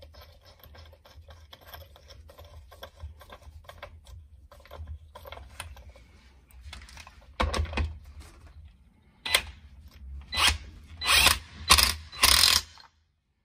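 Small metal clicks and rattles as the washer and nut are fitted by hand, then a cordless impact wrench in about six short bursts in the second half, tightening the nut on the ATV engine's shaft beside the clutch.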